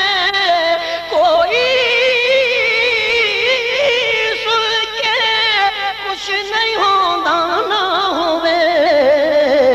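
A man singing a Punjabi naat unaccompanied into a microphone, drawing out a long wordless melismatic passage: held notes with a wavering, ornamented pitch that climbs about a second in and sinks toward the end.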